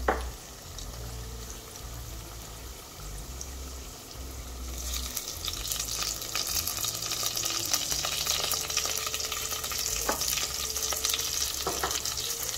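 Sliced onions frying in oil in a stainless steel pot, stirred with a wooden spatula, with dried red chillies added to them. The sizzling is soft at first, then about five seconds in it grows much louder and full of crackles, with a couple of spatula scrapes later on.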